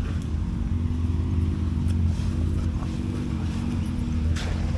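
Off-road vehicle engine running at low, near-idle revs, a steady low hum that wavers gently in pitch as the machine creeps along. A single short click comes near the end.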